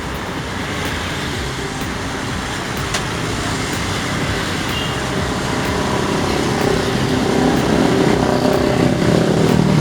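Road traffic passing close by, a steady rush of engines and tyres. A motor vehicle's engine hum grows louder through the second half, and a few light clicks sound over it.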